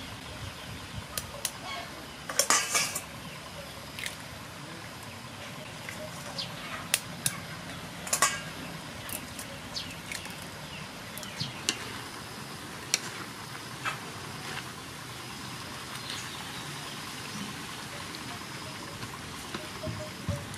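Eggs knocked against the rim of an aluminium wok and cracked open, a scattering of sharp clicks and knocks, the loudest cluster about two and a half seconds in. Under them a steady faint hiss of the bamboo-shoot stir-fry cooking in the wok.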